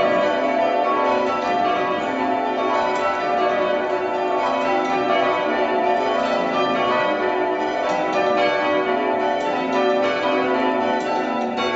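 The back six of a fast, light ring of eight church bells (8 cwt tenor) being rung down in rounds, heard from the ringing chamber. The strokes come quickly and overlap into a continuous, even jangle of bell tones.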